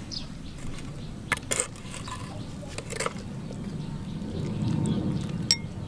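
A metal ladle scooping soup from a clay pot into a bowl, with a few sharp clinks of metal on pottery.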